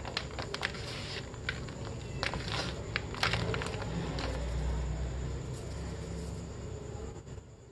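Gym chalk being crumbled and sifted by hand in a plastic basin: dry crackling as small lumps break, over a soft powdery rustle. A low rumble runs through the middle.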